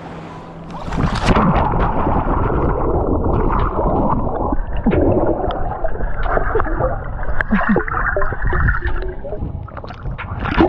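Water gurgling and bubbling around a submerged microphone, heard muffled from underwater and starting suddenly about a second in.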